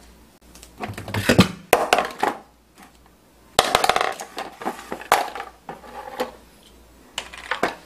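Plastic sink drain and overflow fittings clattering and knocking as they are handled and dropped into a plastic basin: a string of sharp knocks in two bunches, with a couple more near the end.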